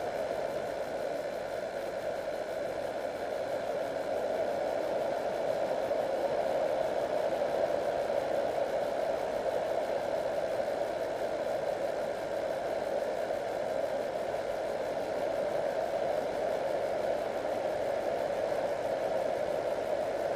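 Steady rushing hiss on the audio channel of an FPV model plane's video downlink. It is strongest in a mid-pitched band, with no clear motor tone or sudden sounds.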